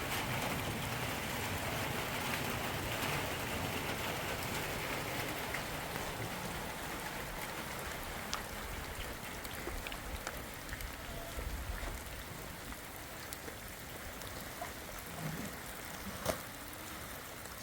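Steady rain falling, an even hiss with scattered drop ticks, easing slightly toward the end.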